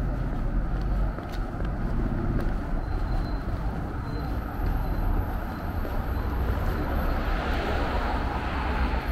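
City street traffic: cars passing with a steady low rumble, and one vehicle growing louder near the end.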